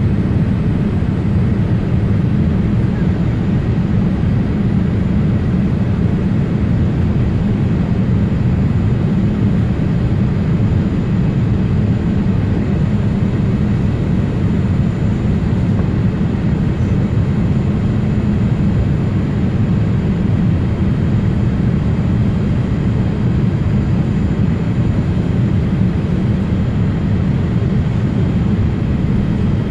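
Steady cabin noise inside a Boeing 787 Dreamliner on its descent to land: a low rumble of the engines and airflow, with faint steady high whines over it.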